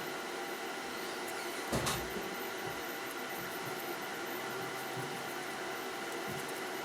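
Steady low hum and hiss of background equipment, with a single short knock about two seconds in from something being handled on the bench.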